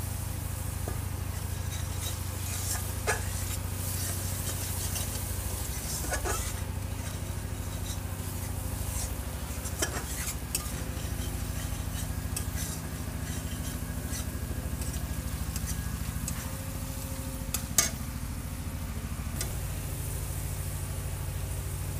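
Ground masala paste sizzling in hot oil in an aluminium kadai, with a metal spatula scraping and knocking against the pan now and then, the sharpest knock near the end. A steady low hum runs underneath.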